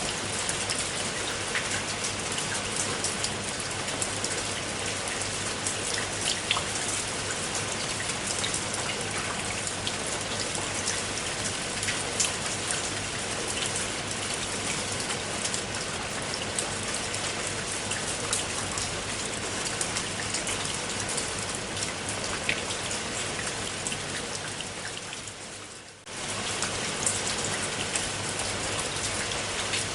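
Steady rain with many individual drops ticking. Near the end it fades down over about two seconds and then cuts back in suddenly at full strength.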